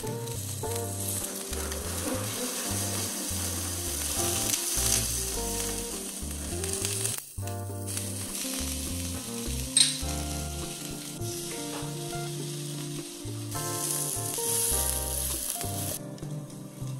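Cubes of 1++ Hanwoo striploin searing in oil on a hot black iron pan: a steady sizzle, with background music under it. The sizzle breaks off briefly about seven seconds in and stops near the end, and there is a single sharp click about ten seconds in.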